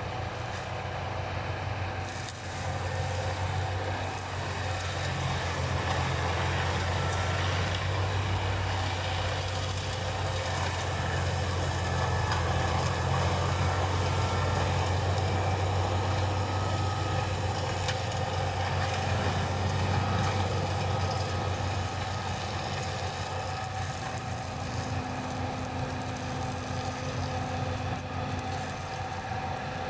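John Deere 6190R tractor's six-cylinder diesel engine running under load while it drives a rear-mounted FAE hammer forestry mulcher through brush and branch debris. A steady low drone with several steady higher tones over it. It grows a little louder a few seconds in and eases slightly near the end.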